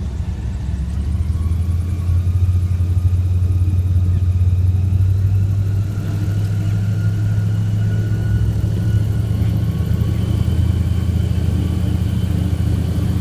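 Airboat engine and propeller running with a steady low drone, picking up about a second in and easing briefly partway through.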